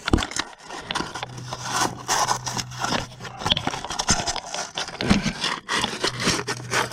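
Hand sanding with sandpaper on the bare metal of a snowmobile engine's flywheel end: quick, irregular scraping strokes, with a steady low hum behind from about a second in.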